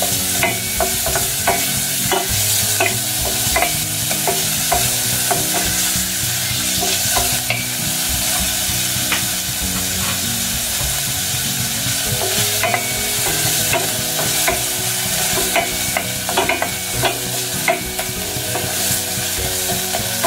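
Chopped garlic and onion sautéing in oil and margarine, sizzling steadily. A utensil clicks and scrapes against the pan at irregular moments as the mixture is stirred.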